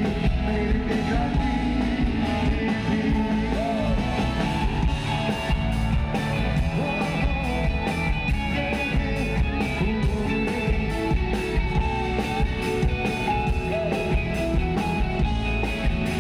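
A live pop-rock band playing loudly with singing, electric guitar and a steady drum beat.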